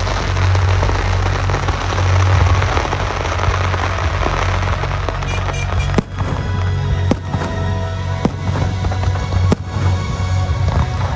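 Fireworks going off over loud music with a heavy bass. From about halfway through, four sharp bangs come roughly a second apart.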